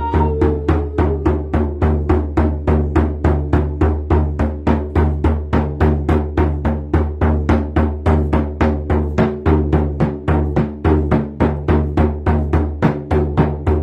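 Hand drum beaten in a steady, even rhythm of about three beats a second, each beat leaving a low ringing tone.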